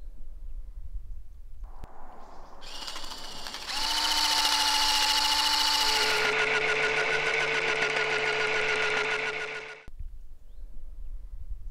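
Small electric motor of a motorised water gun whirring steadily for several seconds with a fast buzzing pulse. Its pitch shifts about halfway through, and it cuts off sharply near the end.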